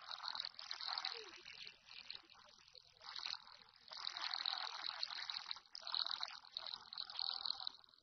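A thin, hissing rush of noise that swells and fades in several surges: an edited sound effect rather than a live source.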